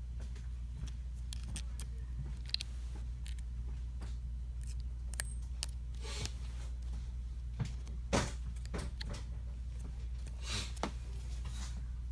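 Scattered small clicks and taps of phone parts and tools being handled while the smartphone's charging port flex is fitted back in, over a steady low hum. The sharpest click comes about eight seconds in.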